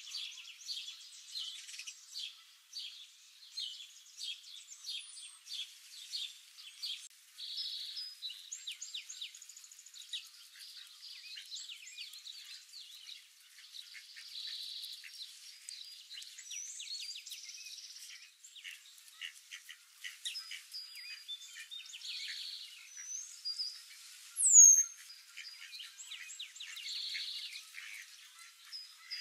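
Small songbirds chirping and singing in a busy mixed chorus of quick high chirps and short trills. About five seconds before the end, one loud, clear whistled note slides down in pitch.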